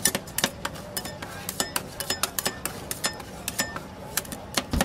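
Metal spatulas clicking and scraping on the frozen steel plate of a rolled ice cream pan as the ice cream mixture is worked, in irregular taps. Near the end a dull thump, then a quick run of chopping taps.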